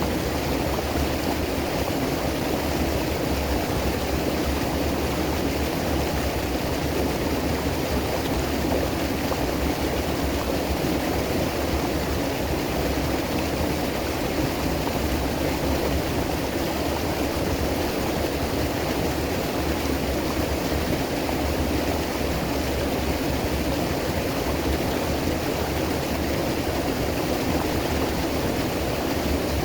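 River water flowing over rocks, a steady, even rushing with no change in level.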